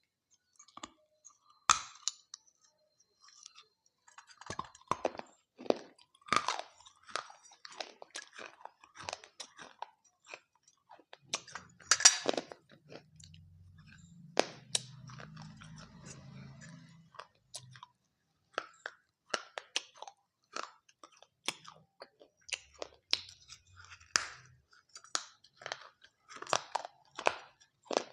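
Close-up chewing of dahi papdi chaat: crisp papdi wafers crunching in irregular bites, the loudest about two seconds in and near the middle. A faint low hum runs for a few seconds just after the middle.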